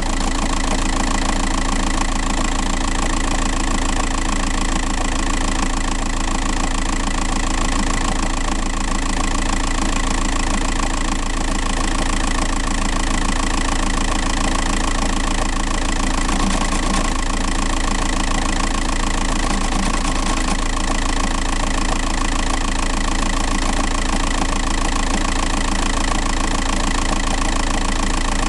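A 105 hp TDI diesel engine idling steadily, heard up close at the flywheel housing, with a noise that the owner puts down to the flywheel.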